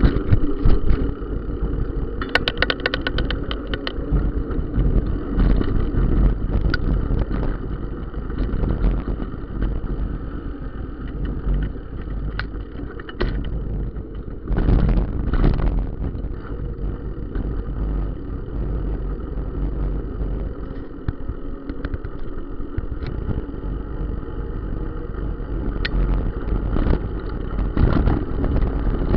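Wind rumbling on the microphone of a bike-mounted camera moving along a rough dirt road, with scattered rattles and knocks from bumps, including a quick run of ticks early on and a couple of louder knocks about halfway.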